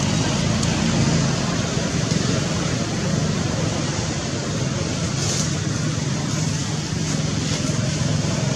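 A steady low rumble with an even hiss over it, unbroken and unchanging.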